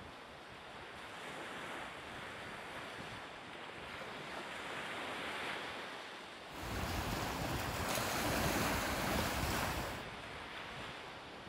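Sea surf washing on the shore with wind. A stronger gust buffets the microphone for about three seconds in the second half.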